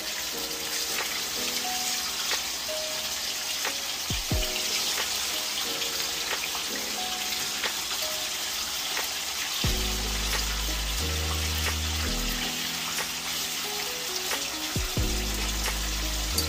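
Big head fish steaks sizzling steadily in hot oil in a frying pan, under background music whose bass line comes in about ten seconds in.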